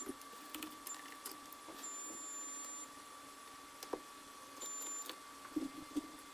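Electronics repair bench equipment during a chip replacement on a laptop logic board: a steady high whine, a higher-pitched tone that sounds several times (once for about a second, near the middle for about half a second), and scattered small clicks and taps.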